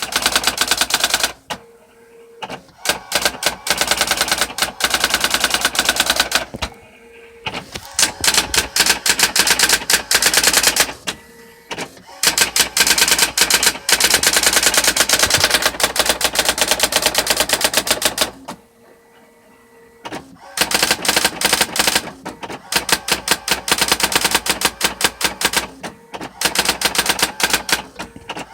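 Brother GX6750 electronic daisy-wheel typewriter printing: rapid runs of sharp strikes lasting several seconds each, broken by short pauses in which a faint steady hum is heard.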